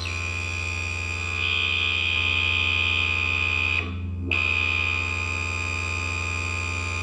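Music From Outer Space Weird Sound Generator, an analog drone synth, holding a steady high buzzing tone over a low drone. The timbre thickens for a couple of seconds and the sound cuts out briefly about four seconds in before the tone returns.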